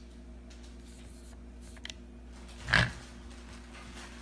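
A single sharp plastic click about two and three-quarter seconds in, from a tripod's leg-angle lock as the leg is set to a wider angle. A couple of faint ticks come just before it, over a low steady hum.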